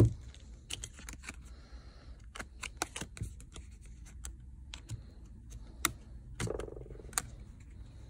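Plastic pry tool being worked around the edge of a Samsung Galaxy A21's plastic frame: a knock at the start, then irregular sharp plastic clicks and snaps as the frame's small side clips come loose.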